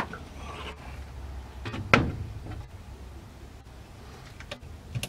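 Small metal clicks and knocks as a screwdriver and the mainspring retainer are worked against the hammer spring of a Marlin 1894 lever-action rifle. There is a sharp click at the start, a louder clank with a brief ring about two seconds in, and a few light clicks near the end, over a steady low hum.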